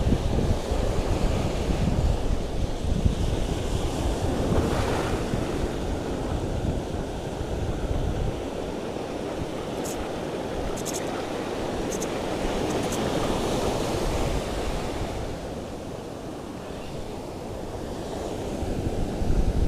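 Surf washing on the shore with wind buffeting the microphone, the low wind rumble heavy for the first half and easing after. A few light clicks about halfway through.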